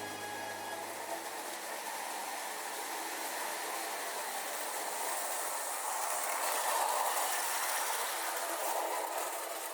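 Toy electric train running on its track: a steady rolling rattle of wheels and motor that grows a little louder about six seconds in.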